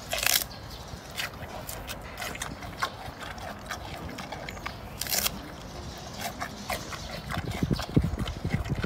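Giant panda biting and chewing a tough plant stalk: a run of sharp, crisp crunches and cracks, the loudest about a third of a second in and again about five seconds in, with heavier low thumps near the end.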